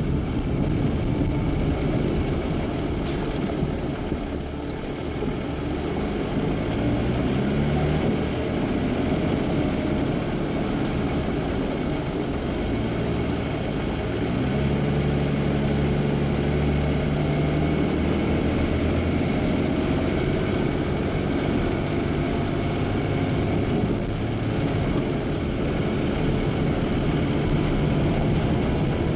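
Jeep engine and road noise while driving: a steady low rumble, with the engine note climbing as it accelerates about a quarter of the way in and again near the middle, then holding steady.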